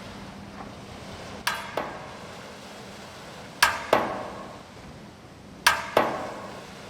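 Three pairs of sharp knocks, about two seconds apart; each pair is two strikes about a third of a second apart, the second slightly softer, each leaving a short ringing tail.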